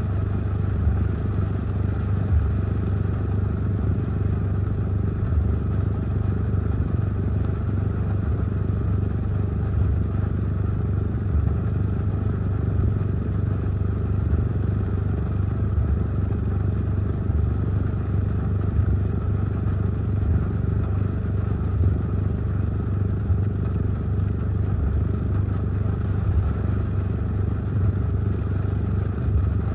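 Heavy rain and wind heard from inside a car cabin: a steady hiss of rain on the roof and windshield over a low, steady rumble.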